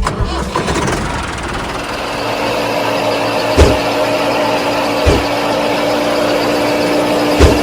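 Small electric motor of a homemade miniature farm machine running steadily with a constant whine, with three sharp knocks at uneven intervals.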